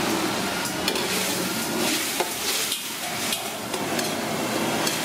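Food sizzling in a hot pan while a utensil stirs it, with frequent clicks and scrapes of the utensil against the pan.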